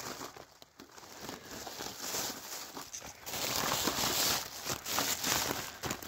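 Dry rustling and crinkling, louder from about three seconds in: footsteps through dry grass and the handling of a plastic bag around a wire bird cage.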